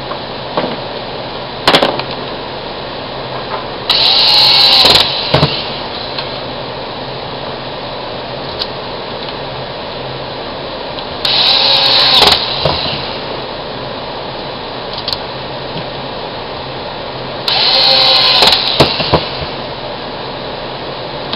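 Cordless drill driving the screws that fasten a die grinder's neck to its motor, in three short bursts a few seconds apart, with the motor's pitch rising and falling in each, and a few clicks and knocks between.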